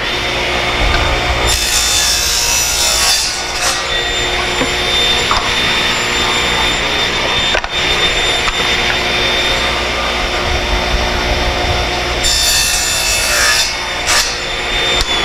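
Table saw running with a crosscut sled, its blade cutting through a board twice: once about two seconds in and again about twelve seconds in, each cut a burst of hiss over the steady motor whine. Near the end the saw is switched off and its whine begins to fall in pitch as it winds down.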